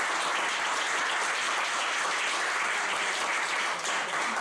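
Small seated audience applauding, steady clapping throughout.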